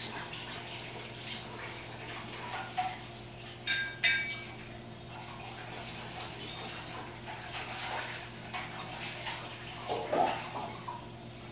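Kitchen dishes and utensils clattering, with two sharp ringing clinks about four seconds in and more clatter near the end.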